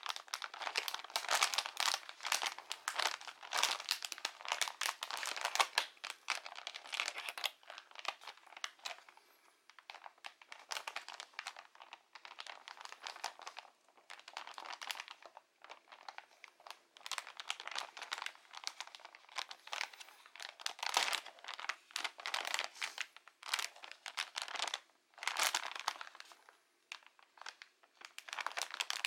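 Clear plastic packaging bag crinkling and rustling as it is handled while small scissors cut at its plastic tag fastener. The crinkling comes in irregular clusters with short pauses.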